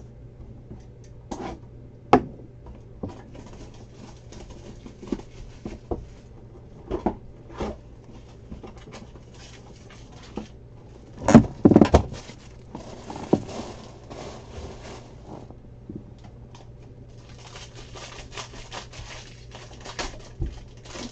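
Hands unwrapping and opening a shrink-wrapped trading-card hobby box and pulling out a plastic-wrapped pack: scattered taps, scrapes and crinkles, with a loud cluster of knocks about eleven seconds in and steady plastic crinkling near the end.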